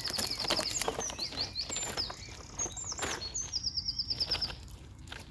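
A small songbird singing high, bright phrases: a fast trill of repeated notes near the start, a few rising and falling whistled notes, then a second fast trill past the middle. Short clicks and crackles sound under the song throughout.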